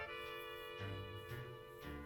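Instrumental background music: sustained melodic notes over a steady bass line.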